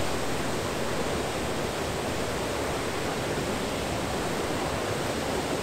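Steady rush of river water pouring through the sluice gates of a weir, an even unbroken noise.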